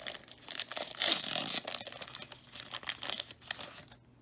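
Foil trading card pack being torn open and crinkled, the wrapper crackling loudest about a second in and dying down near the end.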